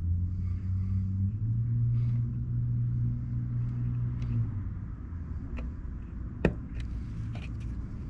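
Low engine hum of a motor vehicle, stepping up slightly in pitch after about a second and dying away past the middle. A single sharp click near the end.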